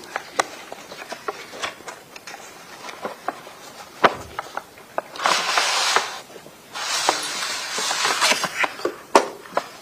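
Scattered small clicks and knocks, with two stretches of rustling, about five and seven seconds in.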